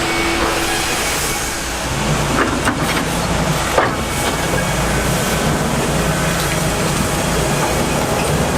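Heavy sawmill machinery running with a steady low hum and rumble, with a few sharp clanks about two and a half to four seconds in.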